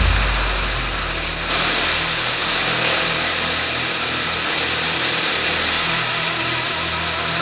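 Off-road motorcycle engine running under way on a dirt track, with wind rumble on the microphone; the sound changes abruptly about a second and a half in.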